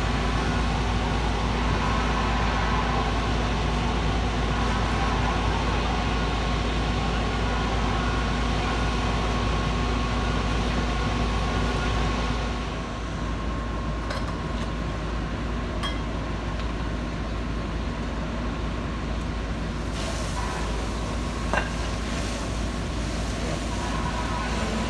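Steady drone of idling heavy-vehicle engines with a constant hum, stepping down a little in level about halfway through, with a few faint clicks in the second half.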